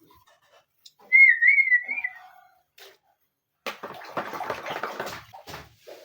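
A short wavering whistle held for about a second, followed a couple of seconds later by about two seconds of scratchy rustling noise.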